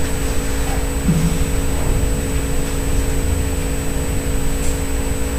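Room tone: a steady low rumble with a constant electrical-sounding hum and no speech.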